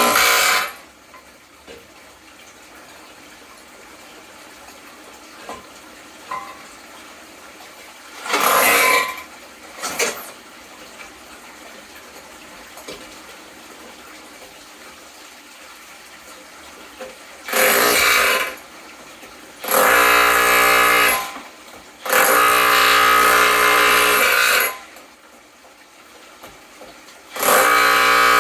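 Impact drill spinning a homemade brake-rotor ore crusher, running in bursts of one to three seconds with a steady motor whine, stopping and starting about six times.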